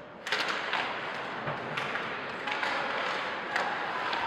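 Ice hockey game sounds: sticks and puck knocking and clacking in a run of sharp taps over a haze of rink and crowd noise, which starts suddenly about a third of a second in.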